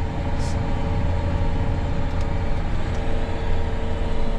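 Steady drone of a John Deere 9R 490 articulated tractor heard from inside its cab while it works: a constant low engine rumble with a steady hum over it. A brief hiss sounds about half a second in.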